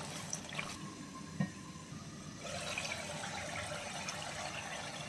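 Prawns simmering in their own released water and oil in a non-stick pan: a steady bubbling sizzle as the water cooks off. A few light clicks come near the start, and the bubbling grows a little fuller about halfway.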